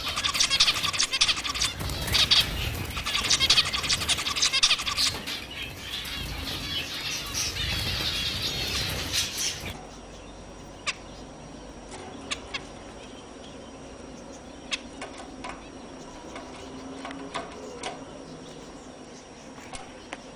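Dense, loud chattering of many small caged finches together. About ten seconds in it gives way to quieter, scattered short chirping calls from a group of zebra finches.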